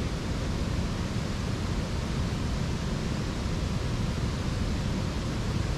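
A steady, unbroken rushing noise, heaviest in the low end, with no distinct events.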